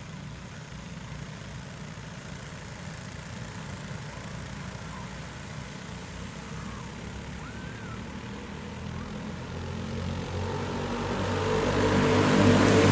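A pack of junior dirt-track go-kart engines running together, distant and low at first, then growing steadily louder over the last few seconds as the field comes closer.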